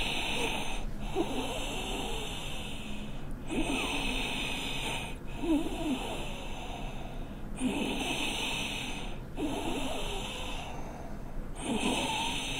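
A boy's laboured, wheezing breathing during an asthma attack, with squeaky, whistling in-and-out breaths about once every two seconds.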